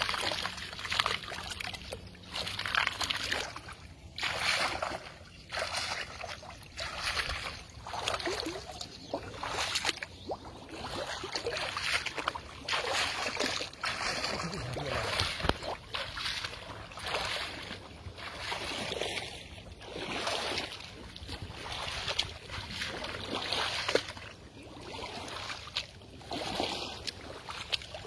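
Shallow water sloshing and splashing in a steady rhythm, one swish about every one and a half to two seconds, as a person wades step by step through a flooded channel.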